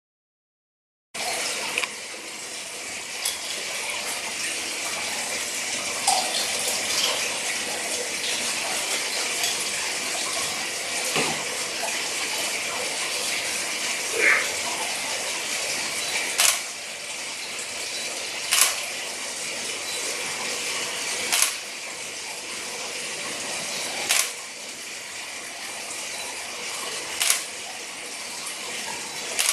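Steady rush and bubbling of water circulating through a marine aquarium sump, with its protein skimmer and pump running; it starts about a second in. From about halfway, sharp single clicks come every two to three seconds.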